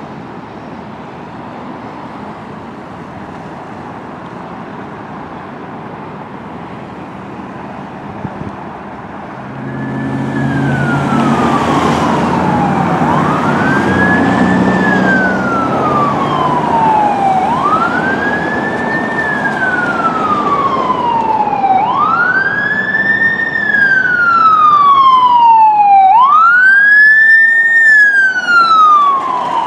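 Street traffic noise, then from about ten seconds in a low rumble and an emergency vehicle siren. The siren wails up and down about every four seconds and grows louder as fire department emergency vehicles approach and pass.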